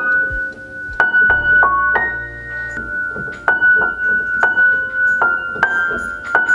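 Piano being played: a tune of struck notes that ring on, with one high note repeated again and again over changing lower notes.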